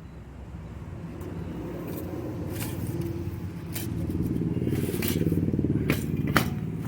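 A motor vehicle's engine running nearby, growing steadily louder, with a few sharp metallic clinks and scrapes as clutch parts are handled.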